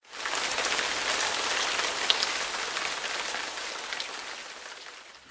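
Steady rain falling, an even hiss dotted with a few sharp drop ticks. It fades in at the start and fades out over the last second or so.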